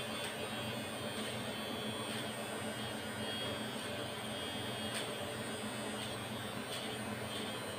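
Battery-operated electric nose hair trimmer running in a nostril with a steady low hum, with a few faint brief ticks as its rotating blade catches and cuts hairs.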